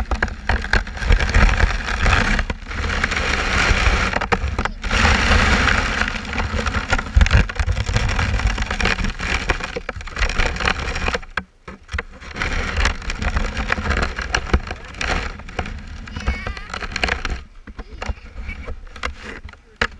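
Plastic sled sliding down a snowy hill, heard right at the sled: a loud, rough hiss of snow scraping under it with a low rumble, dipping briefly about halfway and dying away as the sled slows to a stop near the end.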